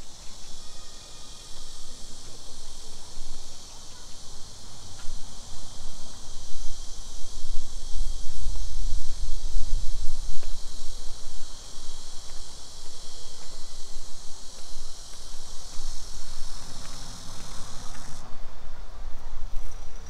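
Steady high-pitched chorus of insects, which cuts off abruptly about eighteen seconds in, over a low rumble that swells in the middle.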